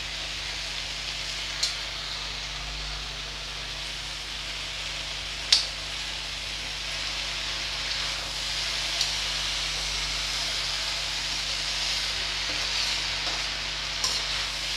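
Chopped okra frying in a metal kadai, a steady sizzle, with a metal spoon clicking against the pan a few times as it is stirred, loudest about five and a half seconds in. The okra is being roasted on a medium-high flame to drive off its remaining moisture.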